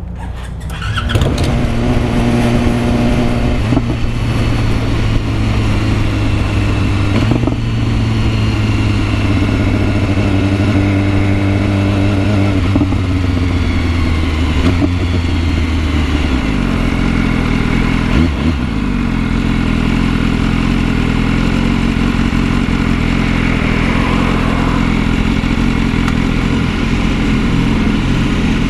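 A BMW S1000RR sport bike's inline-four engine running under way, over a steady rush of wind and road noise. The engine note changes pitch several times, most clearly about sixteen seconds in.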